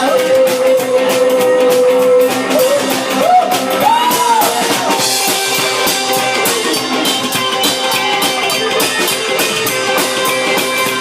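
Live rock and roll band playing an instrumental break: a lead guitar holds one long note for about two seconds, then bends notes up and down, over a steady drum kit beat.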